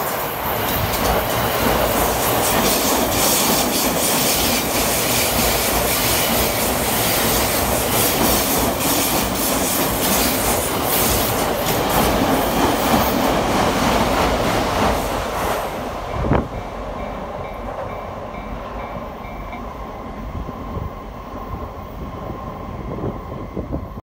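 E217-series 15-car electric commuter train passing close by: a steady wheel-on-rail rumble with rapid clickety-clack over the rail joints. About sixteen seconds in it drops off with a single sharp thump as the last car clears. A fainter rumble follows, with a repeating level-crossing warning bell.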